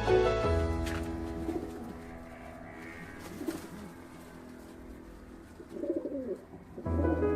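Pigeons cooing in low, wavering calls, twice. Background music fades out in the first second and comes back near the end.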